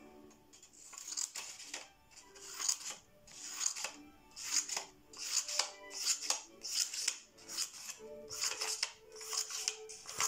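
Scissors snipping through green paper in a steady series of cuts, about one every two-thirds of a second, as a fringe of strips is cut into the sheet. Soft background music plays underneath.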